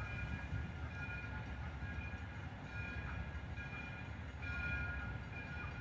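Steam locomotive's bell ringing at about one stroke a second as the engine moves slowly, over a low rumble.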